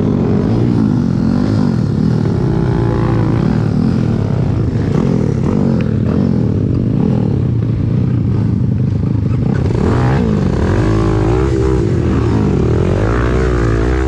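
Dirt bike engines revving, the pitch rising and falling again and again with the throttle.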